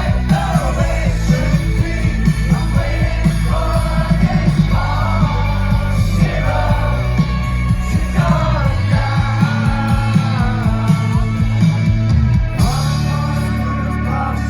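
A rock band playing live: a male lead voice singing over drums, bass and guitars. The heavy low end drops away about nine seconds in and returns with long held bass notes near the end.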